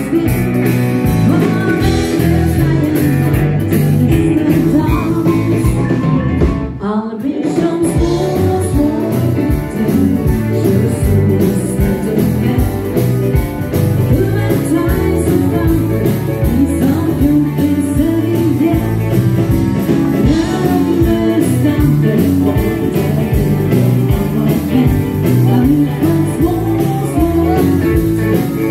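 A live dance band playing an upbeat song for swing dancing, with electric guitar and keyboards. The music breaks off briefly about seven seconds in, then carries on.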